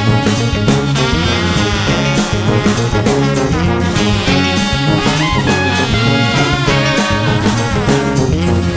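Background music: an upbeat swing-style tune with brass over a steady beat.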